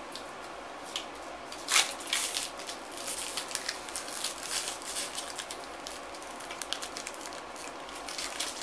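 Plastic wrapper of a meat snack stick crackling and crinkling as it is torn open by teeth and hands, with one sharp rip about two seconds in followed by a run of smaller crackles.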